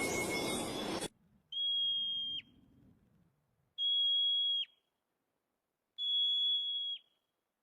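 A hissing noise cuts off about a second in. Then come three separate high, steady whistled notes, each just under a second long and about two seconds apart. Each note ends with a quick downward slur.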